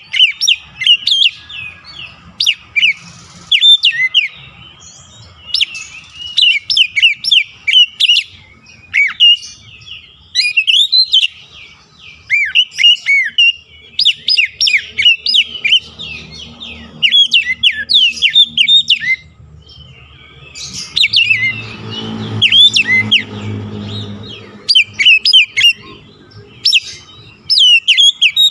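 Oriental magpie-robin (kacer) singing in loud, rapid phrases of sharp chirps and whistles, one phrase every second or two. A low hum runs underneath from about 21 to 25 seconds in.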